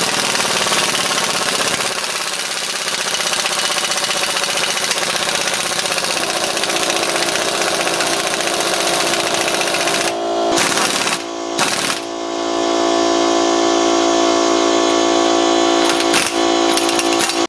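Impact wrench hammering continuously as it drives the screw of a C-frame press, forcing a rusted U-joint cap out of a driveshaft yoke. The hammering pauses briefly a few times a little past halfway and once near the end, then cuts off.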